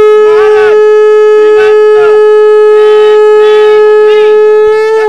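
Conch shell (shankh) blown in one long, steady, loud note that cuts off abruptly near the end. A group of men's voices sounds beneath it.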